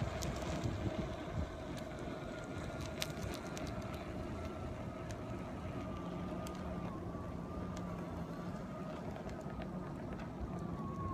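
Airwheel self-balancing electric unicycle rolling over pavement. A thin, high motor whine slowly drifts lower over steady tyre and wind noise, with scattered small ticks.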